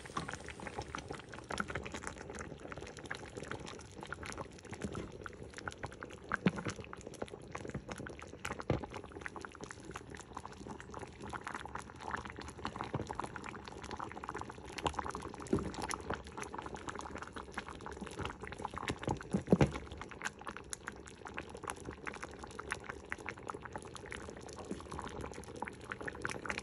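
Thick okra and lentil curry bubbling and popping at a simmer in a pot, with a wooden spoon stirring through it at times. A few louder pops or knocks stand out, the loudest a little before the last quarter.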